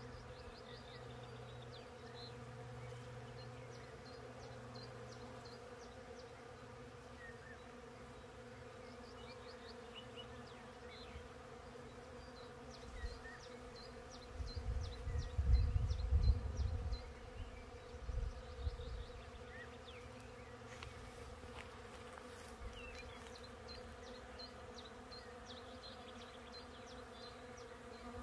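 Many bees buzzing in a steady, continuous hum among tree blossom. A low gusty rumble rises over it for a few seconds around the middle.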